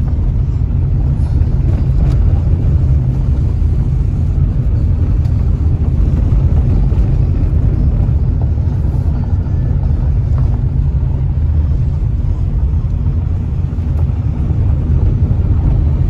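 Car driving along a gravel road, heard from inside the cabin: a steady low rumble of tyres on loose gravel along with the engine.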